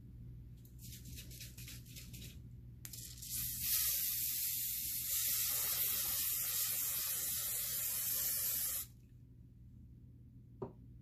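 Aerosol hairspray can spraying in one continuous hiss of about six seconds, starting about three seconds in.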